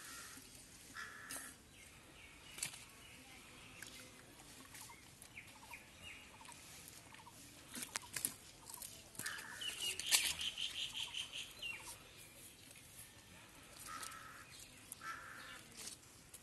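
Birds calling in the background: short repeated calls, with a rapid trill about ten seconds in. Scattered clicks and scrapes come from a stick digging into wet mud.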